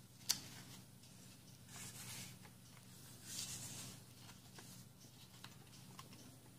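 A sheet of origami paper being folded and creased by hand: a sharp click about a third of a second in, then two soft rustling swishes of the paper being slid and smoothed flat, around two and three and a half seconds in.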